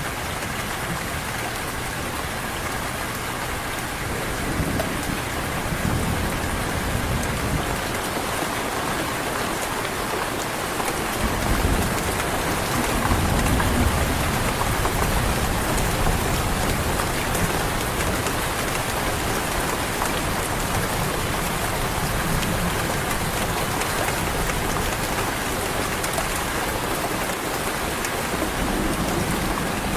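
Heavy rain pouring steadily, with low rumbles of distant thunder rising and fading a few times.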